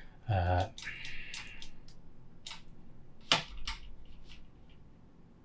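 A few sharp computer clicks from a mouse and keyboard, the loudest about three seconds in, after a short voiced hum at the start.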